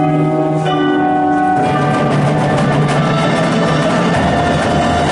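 Indoor percussion ensemble playing: sustained pitched chords from the mallet keyboards, then about a second and a half in the drums and cymbals come in with dense, fast strikes under the held tones.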